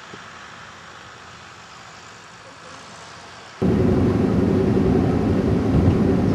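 Faint, even outdoor hiss for the first few seconds, then a sudden cut to the loud, steady rumble of a vehicle driving along a snow-covered road, engine and road noise heard from inside the cabin.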